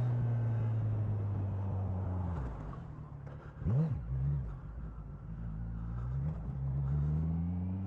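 A vehicle engine running, whose pitch drops about two and a half seconds in. A quick rev follows near the middle, then the pitch climbs steadily as it accelerates.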